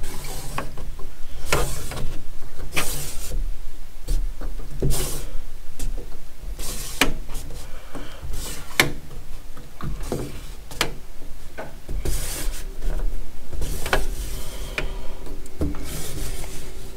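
Round magnetic hooks being set down and slid about on a steel toolbox top: irregular sharp clicks and knocks as they snap onto the metal, with short scraping sounds in between.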